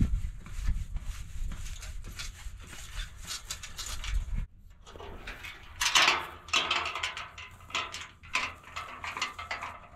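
A person jumping onto a bowed tubular steel livestock panel lying flat, with a heavy thud as he lands and then small knocks and creaks as the panel is stamped straight. After a cut, louder metallic clanks and scrapes of steel panels being handled.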